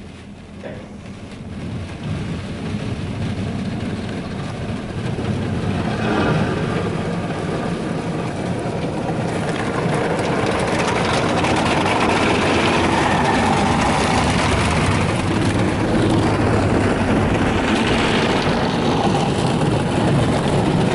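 PDQ ProTouch Tandem automatic car wash working on a pickup truck, heard from inside the cab: rotating brushes scrubbing and water spraying on the body and glass. Quiet at first, it builds over several seconds to a steady loud rushing, heaviest from about halfway through.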